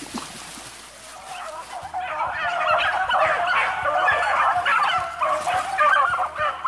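A pack of beagles baying in chorus, many short, wavering voices overlapping, starting about two seconds in.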